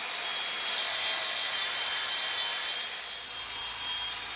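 Cordless angle grinder with a flap disc running and sanding surface rust off steel framing: a steady motor whine under a rough grinding hiss, which grows louder from about half a second in to nearly three seconds in as the disc bears on the metal.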